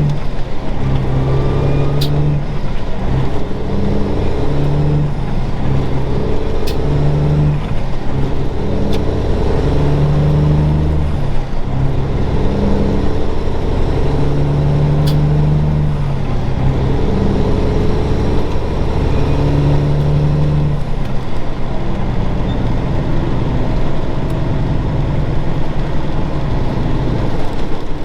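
1999 Peterbilt 379's Cummins Signature Series diesel running under load while driving, the engine note dropping out and coming back again several times, as with a string of gear changes.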